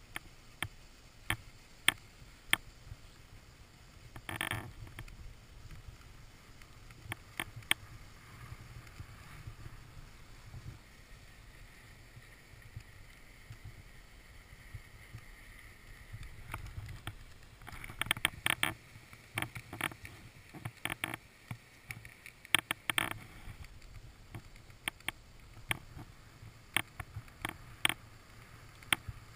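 Skis sliding down a groomed snow piste: a low rumble with a hiss of snow under the skis that grows stronger through the middle, broken by many sharp clicks and knocks and a short scrape about four seconds in.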